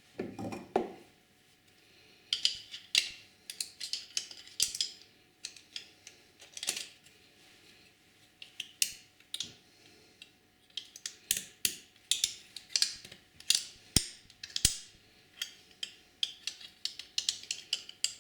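Small metal parts of a tram gear shifter clicking and scraping irregularly as a ball is prised out from inside a coil spring, where it has lodged instead of sitting on top of it. Two sharper ticks come close together near the end.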